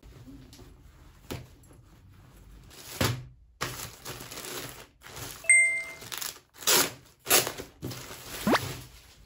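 Thin plastic mailer and polybag crinkling and rustling as they are handled and opened, in several loud rustles in the second half. A short ding sounds about halfway through, and a quick rising tone near the end.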